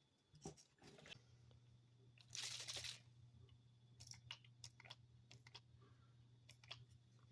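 Faint clicks and small scrapes from handling a folding pocket knife during reassembly and lubrication, with a short gritty rasp about two and a half seconds in. A low steady hum comes in about a second in.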